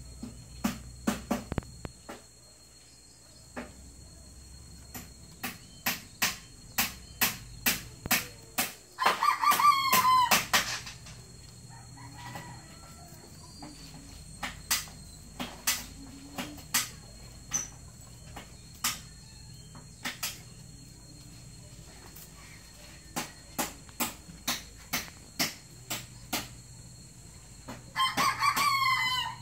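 A rooster crowing twice, once about nine seconds in and again near the end, over runs of sharp knocks coming about two a second.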